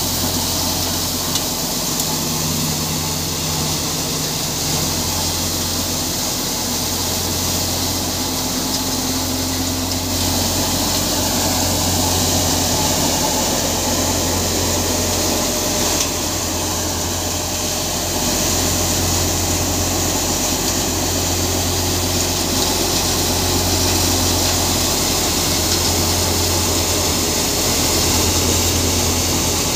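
Tractor-driven thresher threshing crop, its drum and fans making a steady rushing whir over the low, even hum of the Mahindra Arjun Novo 605 DI-i diesel tractor engine that powers it.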